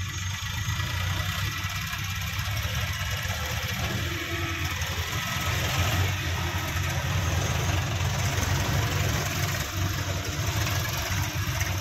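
Diesel engines of a farm tractor and a JCB 3DX backhoe loader running steadily: a low, even hum with a hiss over it.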